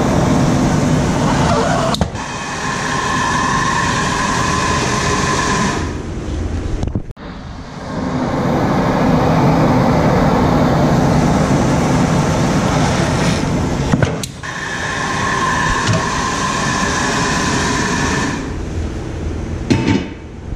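Pneumatic bead breaker on a tire changer machine pushing a car tire's bead off the rim. Compressed air hisses loudly in several long runs, each stopping abruptly.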